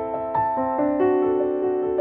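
Background music: piano playing a soft, flowing run of notes, several a second.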